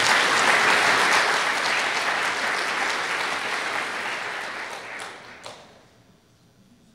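Audience applauding, dying away over the last couple of seconds and stopping about six seconds in.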